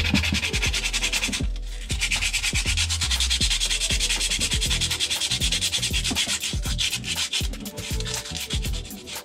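Fast, even back-and-forth abrasive rubbing on a part, several strokes a second, with a brief pause about one and a half seconds in.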